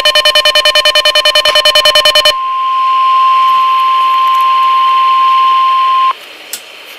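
A weather radio's alert siren beeping rapidly, giving way about two seconds in to the steady 1050 Hz NOAA Weather Radio warning tone, which cuts off suddenly about six seconds in; after it comes faint hiss with a single click.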